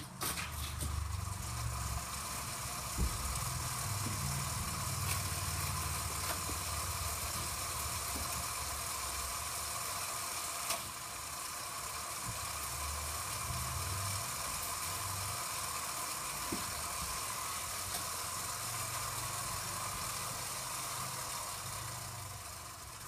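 Toy track set running: a steady mechanical whir with an uneven low rumble like marbles and toy cars rolling on plastic track, fading away near the end.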